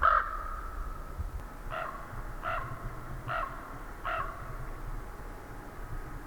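A crow-type bird cawing: one harsh call right at the start, then four more evenly spaced calls about a second apart, over a low rumble of wind.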